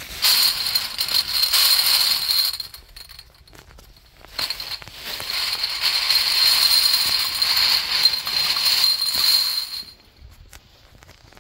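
Loose glass test tubes clinking and rattling against each other inside a plastic bag as a hand stirs through them, with the bag crinkling. It comes in two spells, a short one and then, after a brief pause, a longer one that stops near the end.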